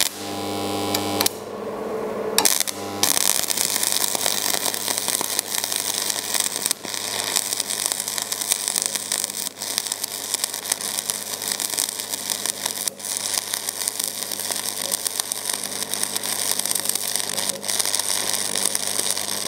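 Budget transformer stick welder burning a 2.5 mm electrode at close to maximum current: a low mains hum at first, then a few seconds in the arc strikes and crackles and sizzles steadily as the bead is run.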